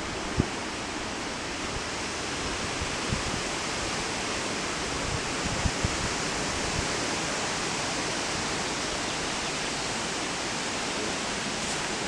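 Steady, even rushing noise with a few faint taps scattered through it.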